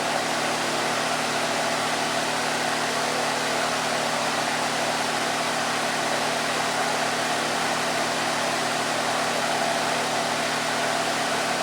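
Electric fan running steadily: an even whooshing air noise with a low, constant motor hum.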